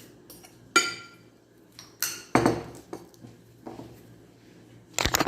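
Kitchen dishes and utensils clinking and knocking, with a ringing clink about a second in and a quick clatter near the end.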